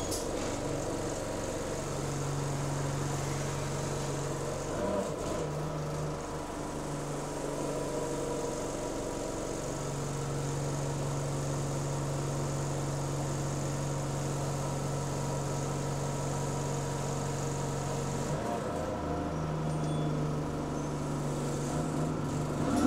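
Diesel bus engine idling steadily while the bus stands at a stop, heard from inside the passenger saloon as a low, even hum.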